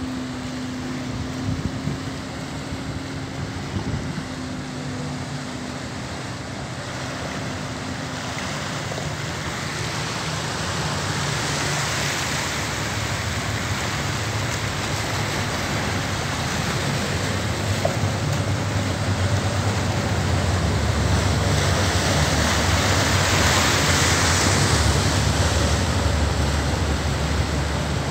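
River water surging and splashing against a stone quay wall and steps, stirred up by the wake and return current of a passing inland cargo barge. It grows steadily louder, with two stronger swells of rushing and splashing, while the barge's low engine hum fades out in the first several seconds.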